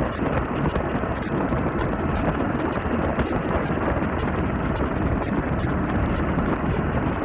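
Helicopter noise: a steady, dense rotor and engine drone with a thin, steady high whine above it.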